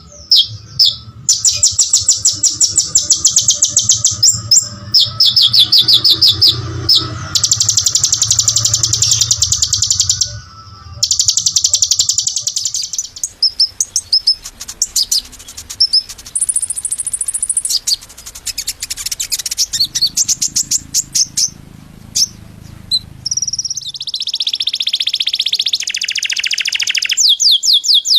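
Small songbird singing long, tightly packed trills of rapid high notes, burst after burst with brief pauses between them. Near the end one run of notes sweeps downward in pitch.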